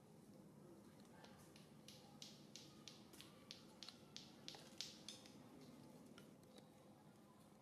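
Near silence: faint background hum with a run of soft, quick clicks, about two or three a second, from about a second in until just past the middle.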